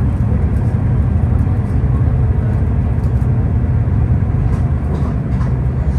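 Steady low rumble of a moving vehicle, with a few faint light ticks over it.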